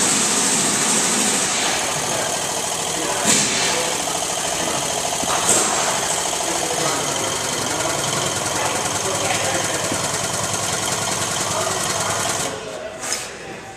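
Air-over-hydraulic bottle jack running on shop air, a steady pneumatic rattle with a strong hiss, lifting and then lowering a semi truck's front axle. A couple of short metal clanks come through it, and the noise cuts off near the end.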